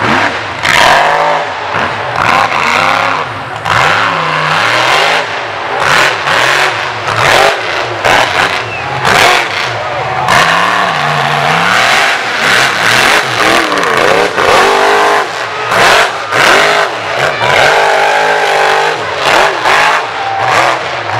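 Mud bog truck's engine revving hard on the throttle through the mud pit. The pitch climbs and drops again and again every second or two.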